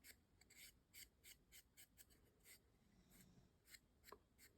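Faint, quick strokes of a foam brush spreading varnish across a laser-cut wooden panel, about four a second, slowing and thinning out near the end.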